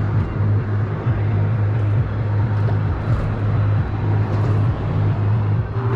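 Steady rumble of road traffic crossing the concrete highway bridge overhead, a continuous low drone with no breaks.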